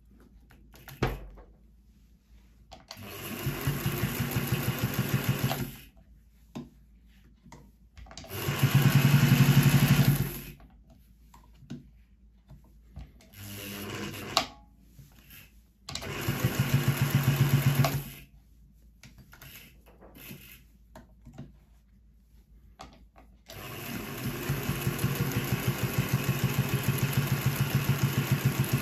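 Singer 201K electric sewing machine, freshly serviced, running in several bursts as it stitches through leather: a fast, even stitch ticking over the motor's hum. Between runs there are quiet pauses with small clicks of handling. The longest run starts a few seconds before the end.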